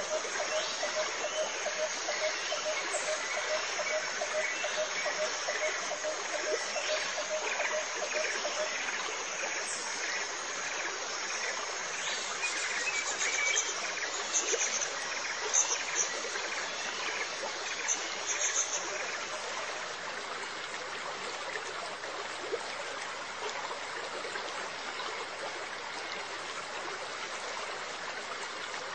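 Aquarium water running steadily with a trickling, splashing hiss, as from a filter return or air bubbling at the surface. A faint tone pulses about three times a second for the first third, and short high chirps come through around the middle.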